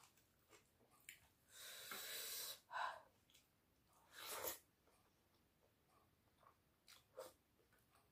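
A person eating rice and curry by hand: a hissing breath of about a second, then two short, louder breathy bursts a few seconds in, with small wet mouth clicks between them.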